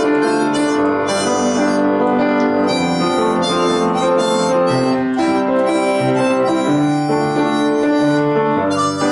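Instrumental music with no singing: held chords with a melody of shorter notes moving over them, at a steady level.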